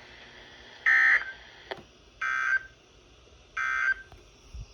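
NOAA Weather Radio EAS/SAME end-of-message data bursts: three short buzzy digital-data bursts, about 1.4 s apart, marking the end of the alert message.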